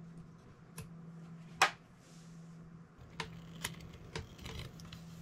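Scattered sharp clicks and taps of small plastic gear being handled, the loudest about one and a half seconds in and a quick cluster in the second half, over a faint steady hum.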